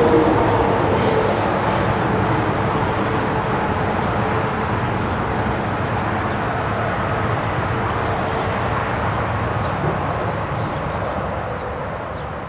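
Steady rush of heavy highway traffic noise. The last tones of a Federal STH-10 siren die away about as it begins, leaving only a faint lingering tone under the traffic. The whole sound fades toward the end.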